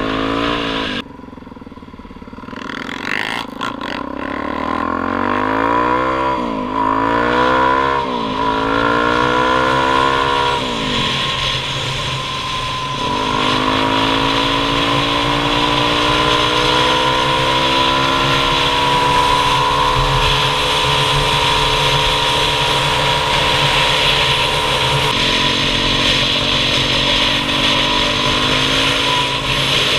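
Dirt bike engine easing off for a moment, then pulling hard up through the gears, its pitch climbing and dropping at each of several shifts. It then settles into a steady high-speed run under heavy wind noise.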